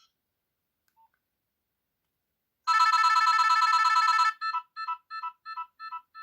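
Nokia 6030 mobile phone ringtone playing through the phone's speaker: after a pause, a loud warbling trill for about a second and a half, then a string of short beeps, about four a second, fading away.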